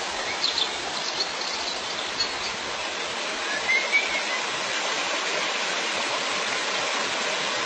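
Steady rush of running water from a stream, with a few short bird chirps over it in the first half.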